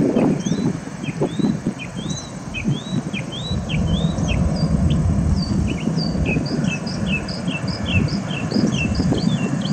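Small birds chirping in quick, dense runs of short high notes, over a steady low rumble that swells and fades.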